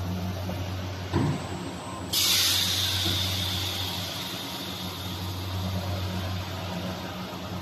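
Evaporator core builder machine with a steady low hum. A knock about a second in, then a sudden loud hiss of released compressed air about two seconds in that slowly tapers off.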